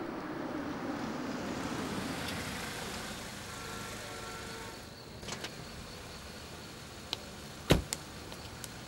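A Jaguar saloon rolls slowly over cobblestones with its engine running and pulls up, and the sound drops about five seconds in. Then come a few sharp clicks and one loud thump of the car door as the driver gets out.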